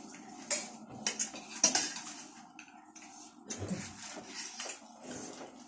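Spoons clinking and scraping against bowls or plates in a string of short, irregular clicks as chatpatey is eaten.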